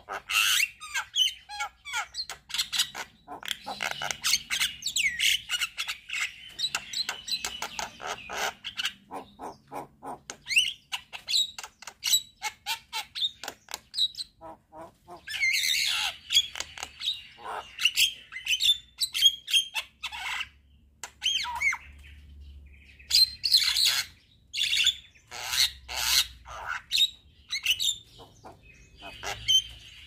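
Javan myna singing a busy, varied song of rapid clicking chatter, whistles and harsh notes, in runs broken by short pauses.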